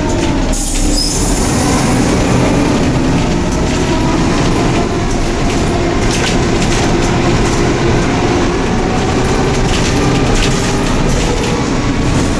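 Cabin noise inside a Neoplan/ΕΛΒΟ N4007 city bus under way: the steady running drone of the engine and road, with a few rattles and knocks from the fittings.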